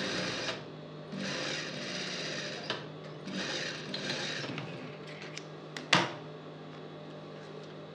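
Industrial sewing machine stitching a seam in three short runs, stopping about four and a half seconds in, over a steady low hum. A single sharp click about six seconds in.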